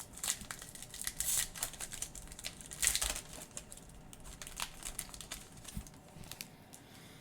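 Trading card pack wrapper being torn open and crinkled by hand: a run of crackles and rips, loudest in the first three seconds, then thinning to lighter handling noise.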